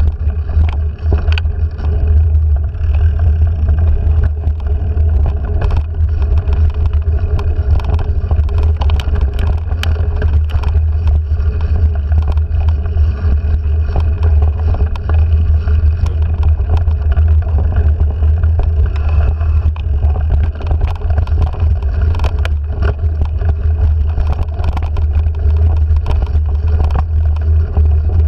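Mountain bike ridden over a dirt singletrack, heard from a handlebar-mounted action camera: a steady low wind rumble with frequent small rattles and knocks from the bike and mount jolting over bumps in the trail.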